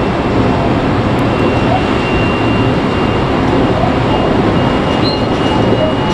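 Steady running noise of a JR 5000 series + 223 series electric train under way, its wheels rolling on the rails, heard from inside the leading car. A faint thin high tone sits over it, with short higher tones near the end.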